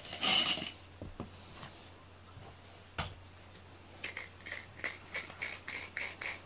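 A short loud burst of noise near the start, then from about four seconds in a cat licking its fur, quick licks several times a second.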